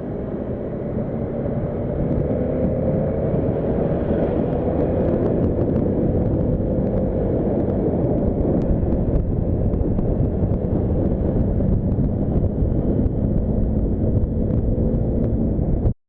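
Heavy wind blast on the microphone over a Bajaj Dominar 400's single-cylinder engine running at high speed. It is a steady, loud din with a faint held engine tone, a little louder about two seconds in, and it cuts off suddenly near the end.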